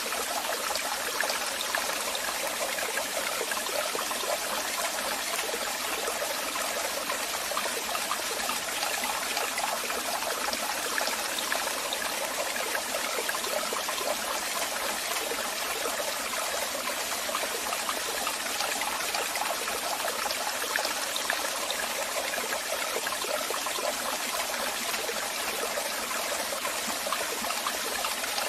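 Waterfall: water falling and rushing in a steady, even hiss with no pauses.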